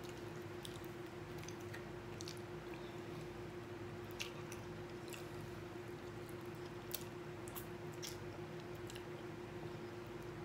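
A person chewing and sucking baked chicken off the bone with her fingers, with scattered small mouth clicks and smacks. A steady hum runs underneath.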